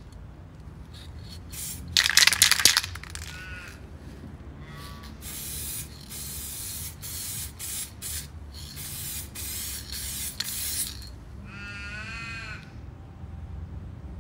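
Aerosol spray paint can hissing in short bursts, the loudest about two seconds in and a quick run of bursts in the middle, as a third coat goes onto a chainsaw crankcase half. A bird calls a few times, longest near the end.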